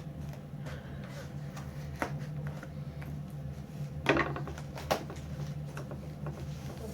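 A cardboard box being cut and pried open with a knife blade: scraping and handling noises with a few sharp clicks and knocks, the loudest about four seconds in, over a steady low hum.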